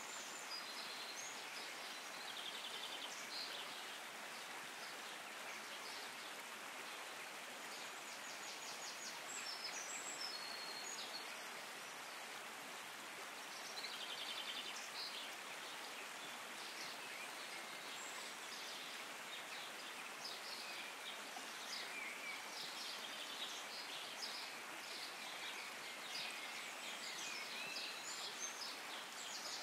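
Outdoor forest ambience: a steady hiss of background noise, with short high chirps and trills from birds and insects coming and going.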